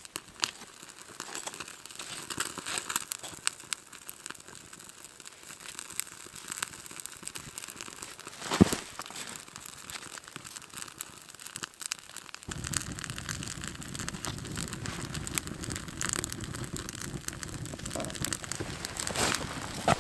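Small fire of dry wood shavings crackling with irregular sharp pops, and shavings crinkling as they are handled and fed in; one louder snap about nine seconds in. A steady low background noise comes in about halfway through.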